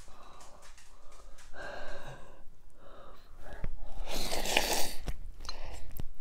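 A man slurping a forkful of instant ramen noodles into his mouth, close to a clip-on microphone, with one long loud slurp about four seconds in and softer breathing and mouth noises before it.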